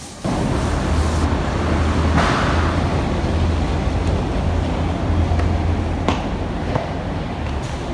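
Steady city background noise with a heavy low rumble, starting abruptly just after the start. A few short clicks come in the second half.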